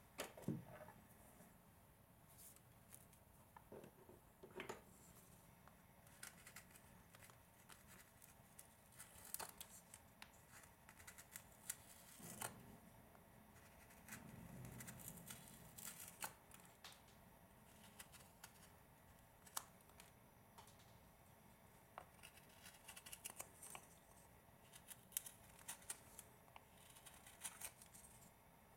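Carving knife slicing small cuts into a hand-held wooden carving: irregular short, crisp cutting and scraping sounds with quiet gaps between strokes.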